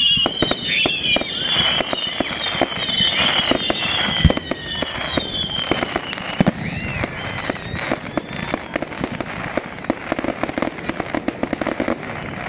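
Fireworks going off: a dense crackle of many small sharp bangs, with high whistles sliding down in pitch over the first few seconds and one heavier bang about four seconds in. The crackle thins out toward the end.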